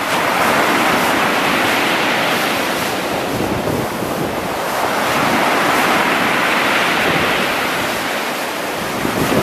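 Rough sea surf breaking and foaming up a pebble beach, a continuous rush of water that swells twice, about half a second in and again around five to seven seconds. Wind buffets the microphone.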